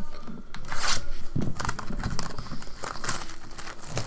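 Plastic shrink-wrap on a sealed trading-card hobby box being torn and crinkled off, a run of irregular crackles and rips.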